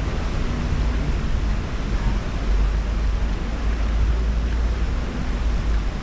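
Wind buffeting the microphone: a steady low rumble with an even hiss of noise above it.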